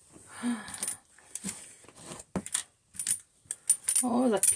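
A series of separate light clicks and knocks, like small hard objects being handled, with a short burst of voice near the end; no vacuum motor is running.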